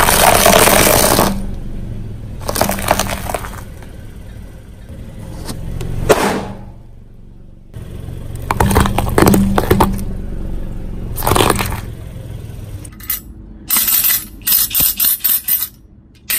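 A car tyre rolling over and crushing food on concrete, first brittle white discs and then raw potatoes, cracking and crunching in several separate bursts. Near the end comes a quick run of short sharp cracks.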